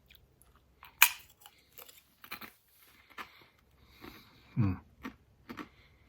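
A person bites into a Doritos tortilla chip with a sharp crunch about a second in, then keeps chewing with small crunches scattered throughout. There is a brief hummed voice sound a little past halfway.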